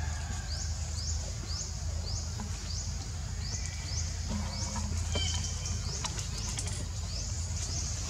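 A short, high, rising chirp repeated about twice a second, from a small animal calling in the surrounding forest, over a low steady rumble.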